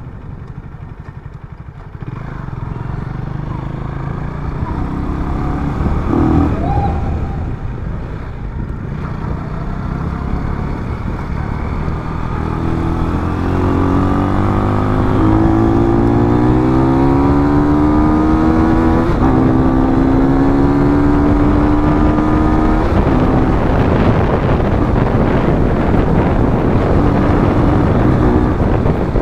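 KTM 250 Duke single-cylinder motorcycle engine under way, picking up about two seconds in, then climbing in pitch as the bike accelerates a little before halfway and holding steady at speed.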